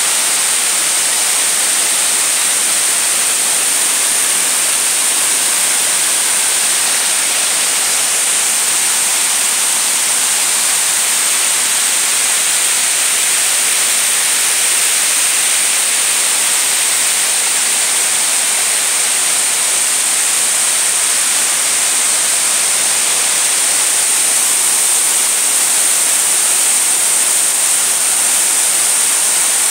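Multi-tiered waterfall cascading over terraced rock tiers: a loud, unbroken rush of falling and splashing water, steady throughout.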